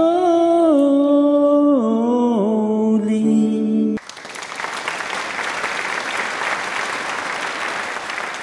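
A man singing a long held final note into a karaoke microphone, with vibrato, stepping down in pitch. It cuts off suddenly about four seconds in, and applause takes over.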